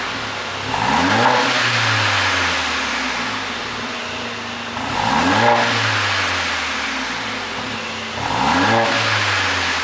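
Mercedes-AMG GLA45's turbocharged 2.0-litre four-cylinder revved three times from idle, each blip rising quickly and falling back slowly, with exhaust pops and crackles on the overrun from a pop-and-crackle tune.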